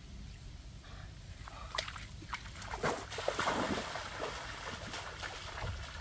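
Shallow muddy stream water splashing and sloshing as a person wades through it, starting with a few sharp splashes about two seconds in and busiest around the middle, over a steady low rumble.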